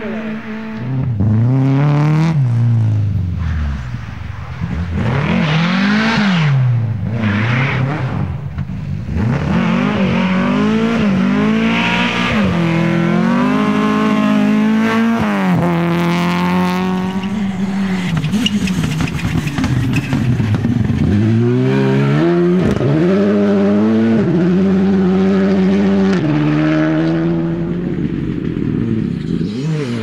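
Rally car engine driven hard, its pitch climbing under acceleration and dropping at each gear change or lift, over and over, then holding steadier for several seconds.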